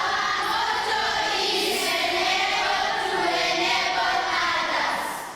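Children singing together as a choir, holding long notes through one phrase that fades out near the end.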